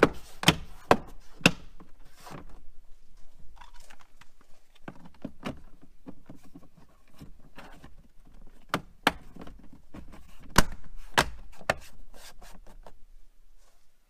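Plastic liftgate trim panel on a Subaru Outback being pressed and tapped by hand, its push-pin clips snapping into place. Sharp clicks and thumps come in a quick cluster in the first second and a half, then more spaced out between about nine and twelve seconds in, with soft rubbing of plastic between them.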